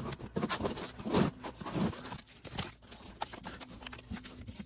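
Masking tape being pulled off the roll and pressed around a headlight's chrome ring and housing: irregular rustling and short ripping sounds, loudest about a second in.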